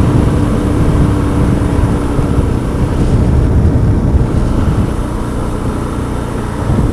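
Motorcycle engine running at road speed under dense low rumble. Its steady note wavers after about two and a half seconds.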